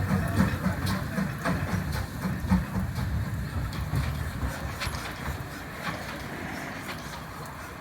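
Steam locomotive working away, its exhaust beats coming about three a second and growing fainter as it draws off, with scattered clicks.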